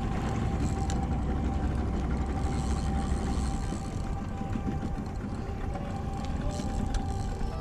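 A small fishing boat's outboard motor running steadily, with a low rumble of wind and water under it.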